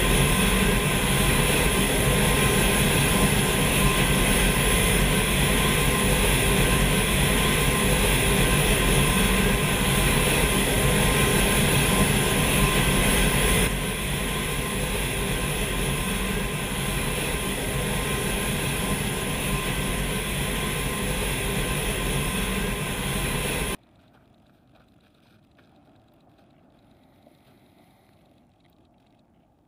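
Four-engine C-130-type turboprop transport running: a loud steady engine drone with a steady whine on top. It steps down slightly about halfway through, then cuts off abruptly to a faint hiss near the end.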